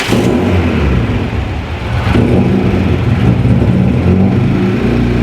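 VW Mk1 Caddy engine firing up and running, with a brief rev, then settling into a steady idle near the end.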